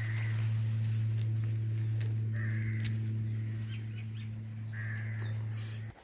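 Crows cawing three times over a steady low hum; the hum cuts off suddenly just before the end.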